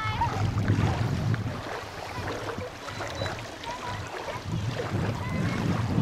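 Lakeshore ambience: wind gusting on the microphone with a low, uneven rumble over small waves lapping at the shore, with faint distant voices.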